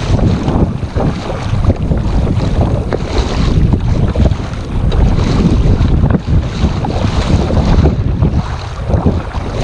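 Wind buffeting the microphone in loud, uneven gusts, with sea water sloshing around a kayak.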